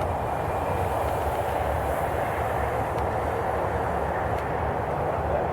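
Steady rumbling noise with no clear tone, most of it low down, such as wind buffeting an outdoor microphone.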